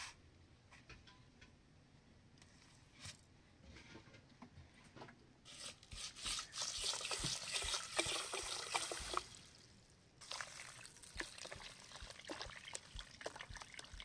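Water pouring and trickling, loudest from about five and a half to nine seconds in, then lighter, with scattered small clicks and knocks.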